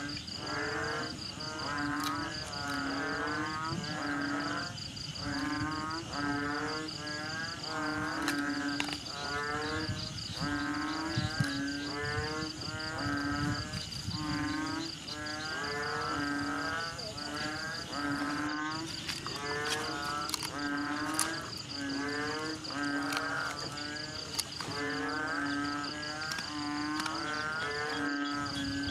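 Animals calling over and over, about one short call a second, with a steady high whine underneath.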